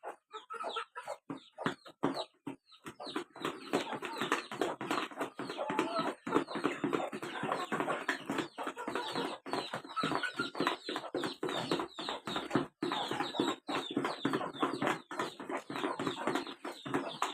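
A flock of chickens clucking and calling, many short calls overlapping in a dense, continuous chatter.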